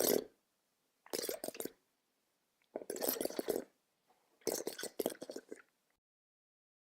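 A short sound effect of rough, crackly noise repeated four times, about a second and a half apart, then it cuts off to silence.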